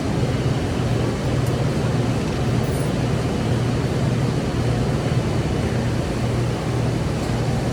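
Steady low electric hum with a constant buzz and an even hiss, typical of a TIG welding set running, with no breaks or changes.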